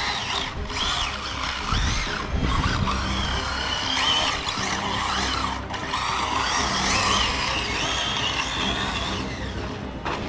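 Arrma Notorious RC car's SSS 1650 kV brushless motor on 6S, whining up and down in pitch as the car repeatedly accelerates and lets off.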